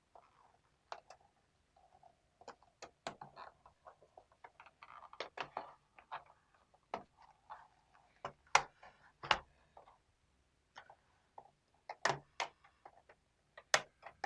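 Plastic bottom cover of a Lenovo IdeaPad L3 laptop being pried off with an opening tool: irregular sharp clicks and snaps as its clips release, with some scraping. The loudest snaps come a little past halfway and near the end.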